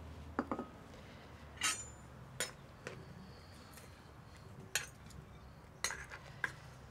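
A metal spoon stirring soup in a clay pot, knocking and clinking against the pot in about eight separate sharp strikes a second or so apart.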